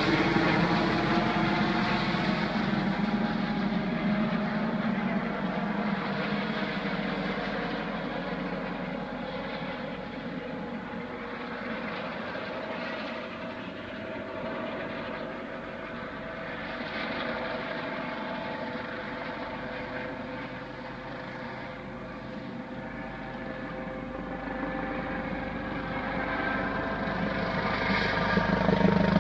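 Helicopter flying overhead: a steady rotor and engine sound that fades as it moves away in the middle and grows louder again near the end as it comes back.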